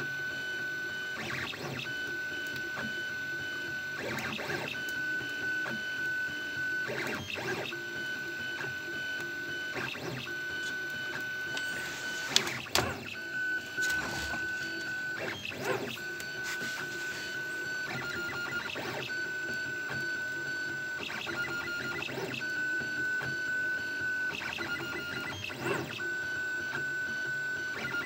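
Prusa A6 FDM 3D printer printing. Its motors give a steady high whine that keeps breaking off and resuming as the moves change, with short sweeping whirs every couple of seconds. A single sharp click about halfway through is the loudest moment.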